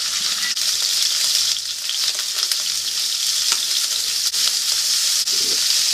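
Sliced pork belly sizzling steadily in hot salad oil in a frying pan. Wooden chopsticks stir the meat and tap against the pan now and then.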